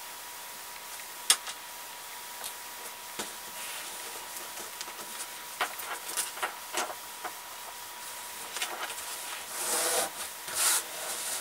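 Fingers pressing and smoothing fabric down onto a zipper held by double-sided tape: light rubbing and scratching with a few scattered small clicks, the rubbing growing louder near the end.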